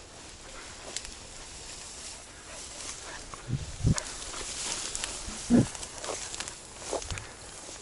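Tall grass rustling and swishing as a person walks through a meadow, with a spaniel working in the grass close by. About four short, low-pitched animal sounds come from the dog, the loudest a little after halfway.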